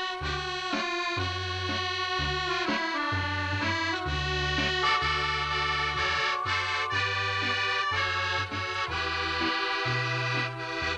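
Live dance band music: a sustained, reedy melody and chords over a steady bass line that changes note every half second or so.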